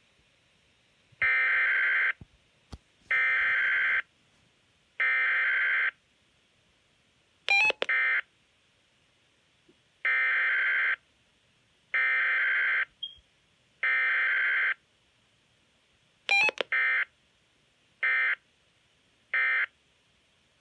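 Weather radio emergency alert data bursts (SAME codes) announcing a freezing rain warning: three buzzy bursts of about a second each, a click, three more of the same, another click, then three shorter bursts near the end, with no alarm tone between them. The sound is narrow and telephone-like.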